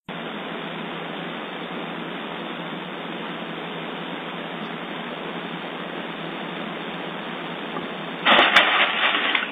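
Steady outdoor hiss heard through a security camera's small microphone, thin and cut off at both the low and high end. About a second before the end it grows louder, with a couple of sharp clicks.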